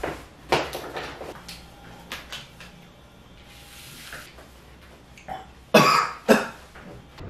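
A man coughing twice, about half a second apart, near the end, after he has tipped something into his mouth. Before that, a few light knocks and clicks of a cup being handled.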